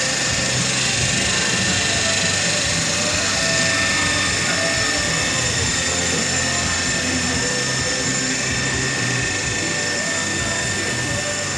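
Haas TL1 CNC lathe running with a steady mechanical whir: a high whine and a low hum that hold even, without pauses.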